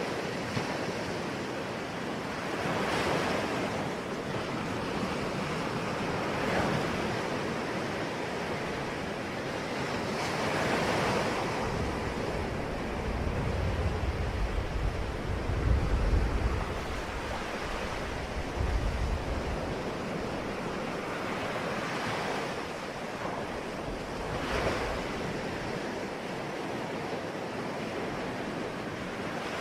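Ocean waves breaking and washing on the shore, swelling and falling back every few seconds. A deeper low rumble runs through the middle for several seconds.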